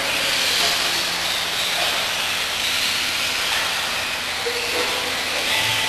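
Electric radio-controlled buggies racing on an indoor dirt track: a steady hissing whine from their motors, gears and tyres.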